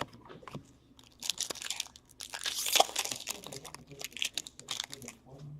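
A foil hockey card pack wrapper being torn open and crinkled, in two longer crackling stretches with scattered small clicks and rustles of cards being handled.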